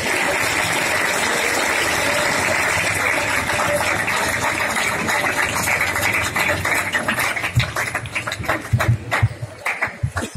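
Audience applauding. The clapping is dense for the first few seconds, then thins out into scattered separate claps before dying away near the end.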